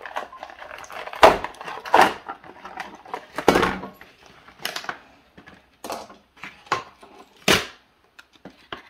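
Cardboard box insert being handled and pulled apart: irregular sharp crackles and knocks. The loudest come about a second and two seconds in, with a longer scraping crackle about three and a half seconds in, then sparser clicks.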